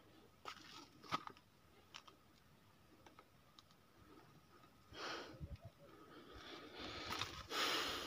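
Faint footsteps crunching through dry grass and undergrowth: a few sharp crunches in the first second, then rustling swishes of brushed vegetation about five seconds in and again near the end.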